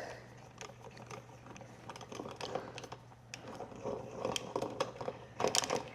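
Faint, scattered clicks and light taps of hand tools and motorcycle parts being handled during disassembly, a little busier in the second half.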